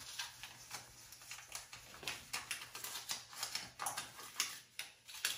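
A small folded paper note being unfolded by hand: a run of irregular crinkles and light clicks.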